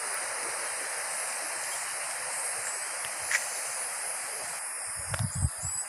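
Steady, even outdoor rushing noise with no distinct events, and a few low thumps near the end.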